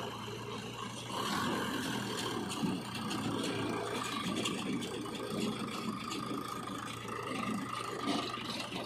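Diesel engine of heavy earth-moving equipment running steadily, with rattling and clanking from the machinery.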